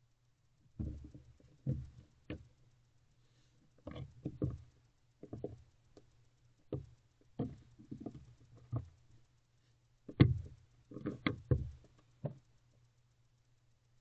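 Barn owl moving about inside a wooden nest box: irregular clusters of soft thumps and knocks as its feet and body meet the floor and walls, the loudest about two-thirds of the way through.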